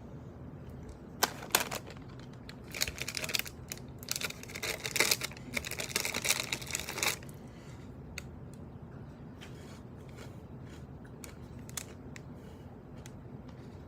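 Plastic snack packaging crinkling and tearing as it is opened, a dense patch of crackles for a few seconds. After that come only scattered light ticks.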